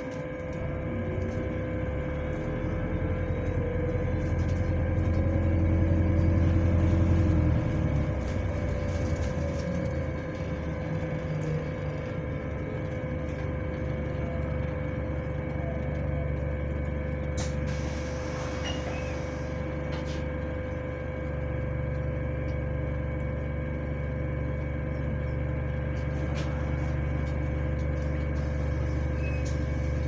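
Inside a Go-Ahead London Enviro400H hybrid double-decker bus under way: a low drivetrain drone that swells for several seconds early on, then settles and changes level again. Over it runs a constant high whine, which the uploader queries as a weird fan noise.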